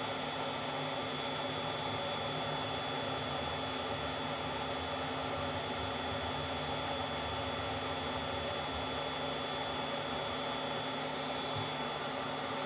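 Hot air rework station blowing steadily: an even airy hiss with a faint high whine.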